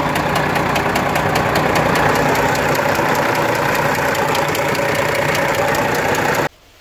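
Volvo 780 semi-truck diesel engine idling with a regular knock running through it, a knock that came on suddenly while driving and is taken as the sign of the engine failing. It stops abruptly near the end.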